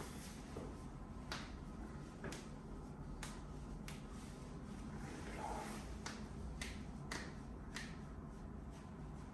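Faint, sharp clicks, about eight, coming at irregular intervals over a low steady background, with light rustling.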